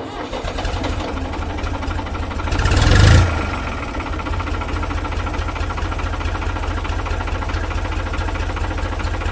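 Diesel engine of heavy machinery running with a rapid steady beat, revving up briefly about three seconds in and then settling back.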